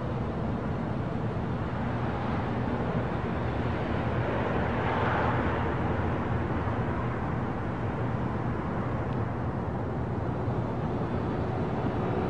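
Street traffic: a steady engine hum and road noise, swelling as a vehicle passes close about five seconds in.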